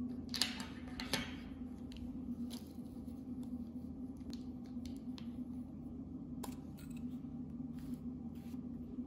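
Plastic lip balm tubes clicking and tapping in the hands as they are handled and one cap is pulled off, with a burst of crackling noise about a second in, over a steady low hum.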